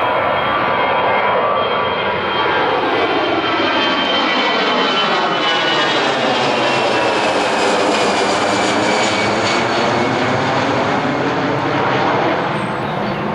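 Jet airliner passing close by, its engines giving a loud, steady roar with high whine tones that slowly fall in pitch as it goes past.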